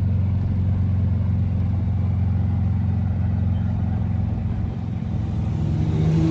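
Golf cart engine running with a steady low rumble while being ridden, with another engine tone coming in near the end.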